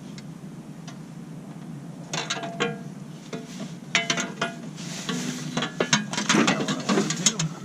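Socket ratchet clicking in short runs with metallic clinks as bolts on the skid plate's side brackets are tightened. It is quiet for about the first two seconds, then comes in several bursts.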